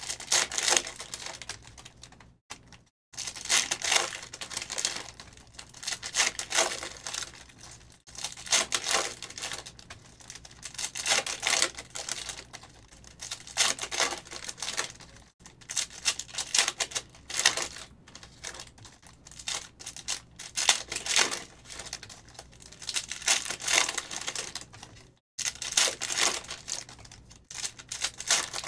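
Foil trading-card packs (2022 Panini Optic football) being torn open and handled, with the cards flicked through between them. It comes as bursts of rustling and rapid clicking every two to three seconds.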